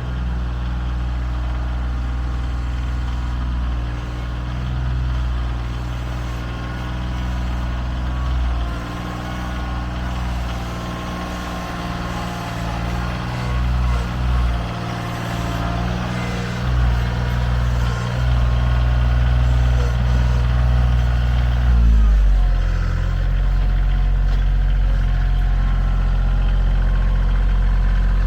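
Vehicle engine running steadily while driving, its pitch stepping down about three quarters of the way through.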